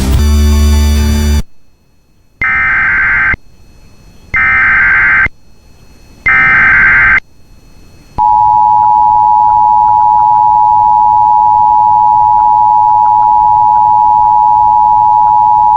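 Emergency Alert System header: three short, buzzy digital data bursts about a second apart, then the steady two-tone EAS attention signal that announces an incoming warning. A brief loud burst of mixed tones comes first.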